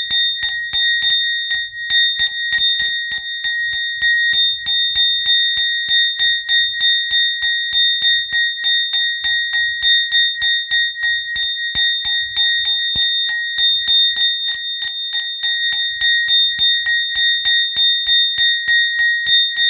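Small prayer bell rung rapidly and steadily, about four strikes a second, its high ringing tone held without a break.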